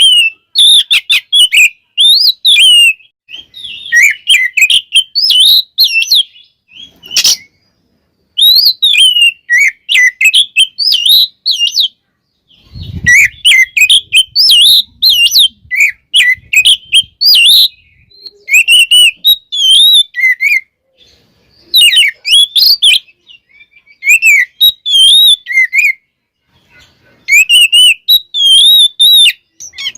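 Oriental magpie-robin (kacer) singing loudly in bursts of rapid, high, gliding whistled phrases with short pauses between them. A brief low thump sounds about thirteen seconds in.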